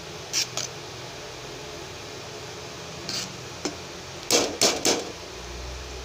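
Perforated metal skimmer spoon scraping and knocking against an aluminium pot while turning syrup-coated rice. Two short strokes come near the start, one about three seconds in, and three louder ones in quick succession about four seconds in, over a steady low hiss.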